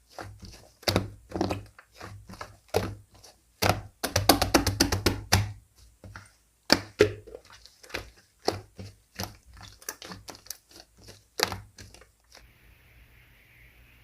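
Slime being squished, poked and folded by hand, giving a run of sharp pops and clicks that come thick and fast for about a second and a half midway and stop about twelve seconds in.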